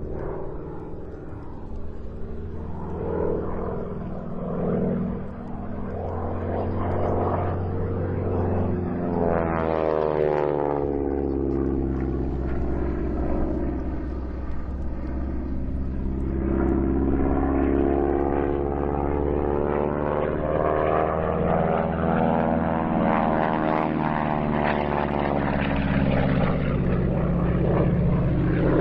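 North American AT-6 Texan's nine-cylinder Pratt & Whitney R-1340 radial engine and propeller running under power in aerobatic flight. Its tone sweeps down and back up twice as the plane manoeuvres and passes.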